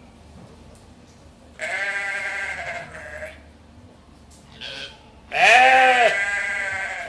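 Goats bleating: a long bleat about a second and a half in, a brief one near the middle, and a loud, drawn-out bleat near the end.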